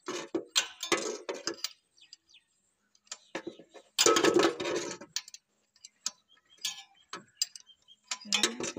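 17 mm spanner clinking and rattling on a motorcycle engine's oil drain bolt as it is worked loose. It comes in three bursts of short metallic clicks, the loudest about four seconds in.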